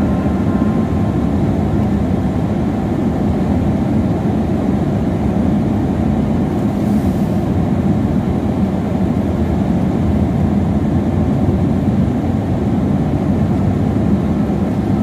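Steady engine and tyre noise heard from inside a car driving on a wet road.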